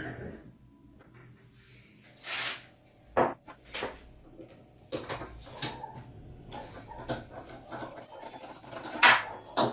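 Irregular scraping and rubbing with a few sharp knocks: the parts of an antique hand-cranked grinder being handled and scraped during restoration.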